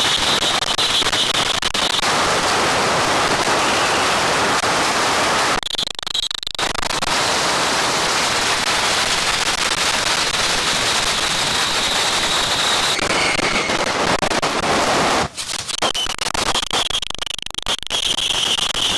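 Dense, continuous crackling of firecrackers going off in a rapid barrage, broken briefly about six and fifteen seconds in.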